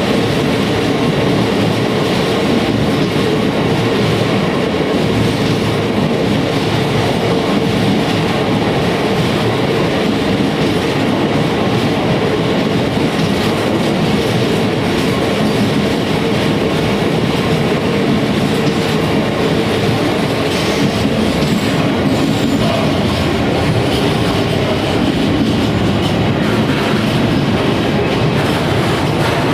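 Freight train rolling past, its wagons' wheels running steadily on the rails, with a steady tone running under the noise.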